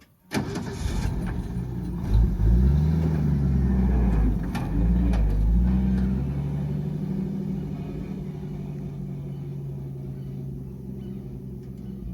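A vehicle engine starts just after the beginning, its pitch rising and falling over the next few seconds as it revs and pulls away, then settles into a steady run that slowly fades.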